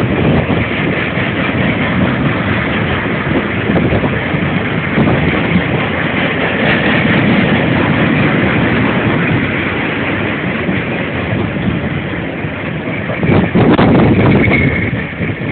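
Freight train cars rolling past, a steady rumble and rattle of wheels on the rails, with a louder burst of clatter about thirteen seconds in.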